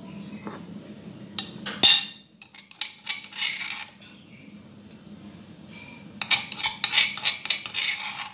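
Metal spoon scraping and clinking inside a stone mortar as pounded chili and garlic paste is scooped out, with a sharp clink about two seconds in and a quick run of scraping near the end.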